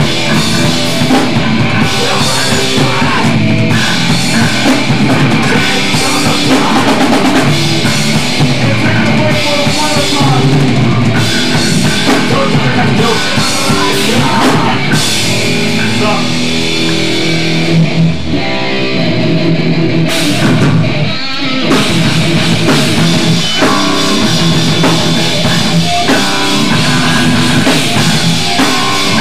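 Hardcore punk band playing loud, with distorted guitars and a pounding drum kit. The music thins out briefly about eighteen seconds in, then the full band comes back in.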